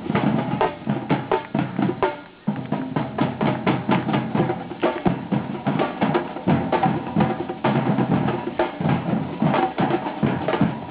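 Music played on drums and percussion, with a fast, busy beat of many strikes. It drops out briefly about two seconds in.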